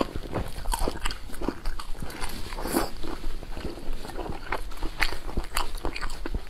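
Close-up chewing and mouth smacking of a person eating boiled dumplings, heard as an irregular run of short clicks and smacks several times a second.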